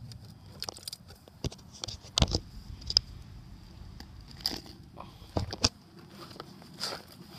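Scattered handling noises: sharp clicks and knocks with some crinkling, loudest a couple of seconds in and again past the middle, while vinegar is added to baking soda in a cup.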